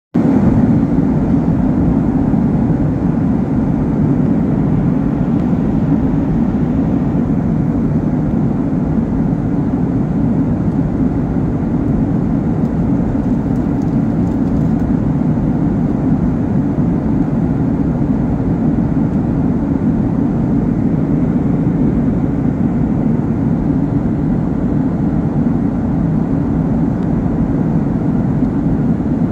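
Steady low roar of a Boeing 737 airliner in cruise flight, engine and airflow noise heard inside the cabin.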